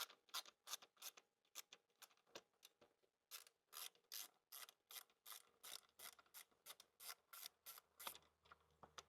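Faint, rapid clicking of a hand tool undoing a motorcycle fairing bolt, about three to four clicks a second.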